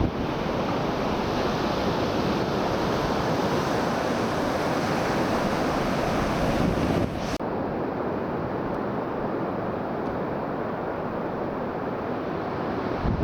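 Steady rush of sea surf with wind buffeting the microphone. About seven seconds in the sound changes abruptly and loses its high hiss.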